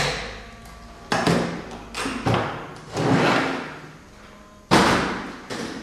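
A series of sudden thuds and knocks, about six in a few seconds, each dying away quickly, the loudest one near the end.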